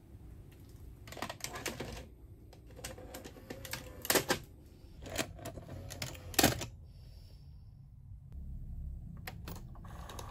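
Front-loading cassette mechanism of a 1985 Hitachi VT-88 VHS Hi-Fi VCR taking in a tape: a series of clicks and clunks, the loudest about two thirds of the way through, over a low motor hum. The mechanism is working smoothly with its broken gear glued back.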